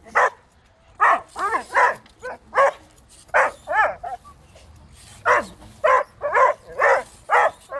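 A dog barking over and over in short, high-pitched yelping barks, with a pause of about a second midway.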